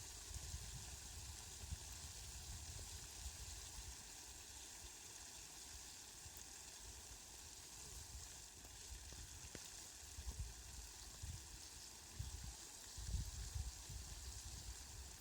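Steady, faint hiss of rain, with short low rumbles now and then, more of them in the second half.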